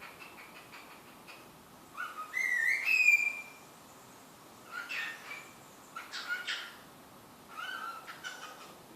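Pet cockatiel whistling and chirping: soft chatter, then a loud rising whistle about two seconds in, followed by several short chirps.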